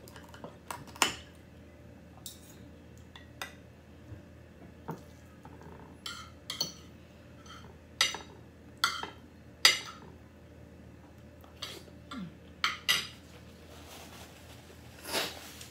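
Metal spoon and fork clinking and scraping against a ceramic plate and a small sauce dish, in about a dozen scattered, irregular clinks, some of them ringing briefly.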